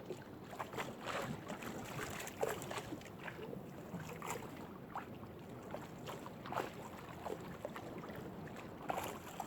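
Crab gill net being hauled by hand into a small fishing boat: irregular knocks, taps and splashes over steady wind and water noise.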